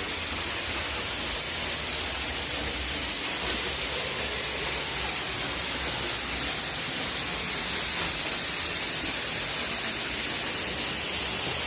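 Waterfall rushing steadily: an even hiss of falling water, strongest in its high tones, heard from inside a rock cave.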